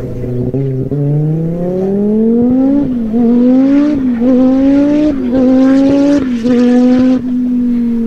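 Audi rally hillclimb car accelerating hard, the engine note rising through each gear with three or four quick upshifts, then the driver lifts off and the note drops about seven seconds in.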